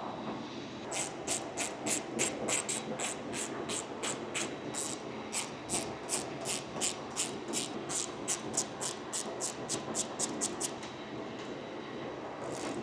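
Ratchet wrench clicking on the engine oil filter housing, an even run of about three clicks a second that stops a couple of seconds before the end, over a steady hangar background rumble.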